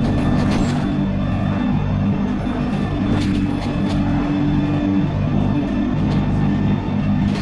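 Background music with steady, sustained low tones.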